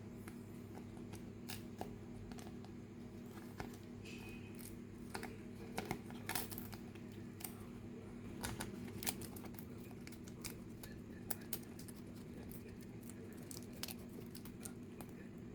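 Scattered quiet clicks and taps of toy packaging and small plastic pieces being handled, over a steady low hum.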